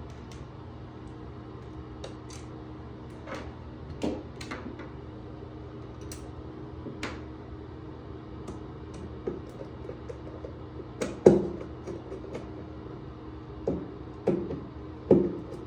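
Square metal shower drain grate being set back in place and screwed down with a screwdriver: scattered clicks and taps of metal on metal and tile, with the sharpest knocks in the last few seconds, over a steady low hum.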